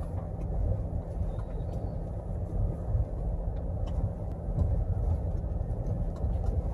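Steady low rumble of a car's engine and tyres heard from inside the cabin as it drives slowly over a cobbled lane, with a few faint clicks and rattles.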